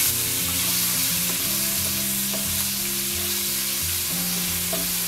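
Chopped onion frying in hot oil in a nonstick pan, a steady sizzle, with a wooden spatula stirring and scraping through it as the onion softens.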